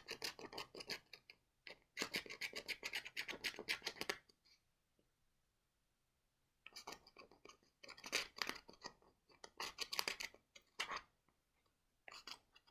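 Rapid, fine scratching of a plastic card's edge against the scratch-off panel on the back of a gift card, rubbing off the coating, in two runs of quick strokes with a pause of about two seconds between them.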